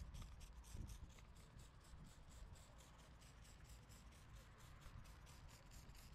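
Hand trigger spray bottle being squeezed rapidly and repeatedly, a quick even run of short spray hisses at about five a second, misting the kit's spray lubricant onto a plastic headlight lens.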